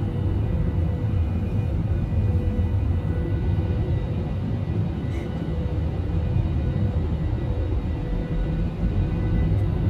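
Jet airliner cabin noise heard from a window seat: a steady low engine and airflow rumble with a faint steady hum over it.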